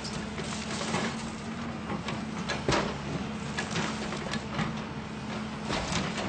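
A machine running with a steady hum, with many irregular knocks and clatters on top of it.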